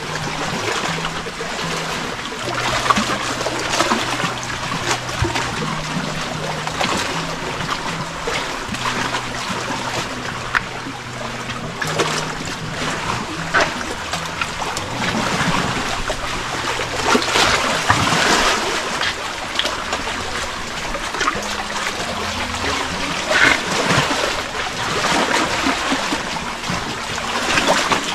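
Shallow sea water lapping and splashing against a rock wall at the waterline, with a steady wash and frequent small splashes.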